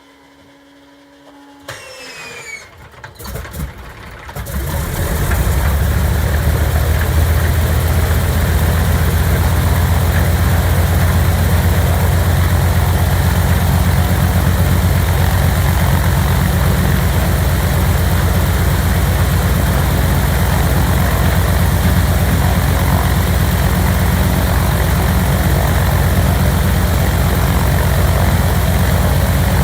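Old propeller aircraft piston engine being started. A rising starter whine comes about two seconds in, followed by a few uneven coughs. The engine catches around four seconds in and runs loud and steady.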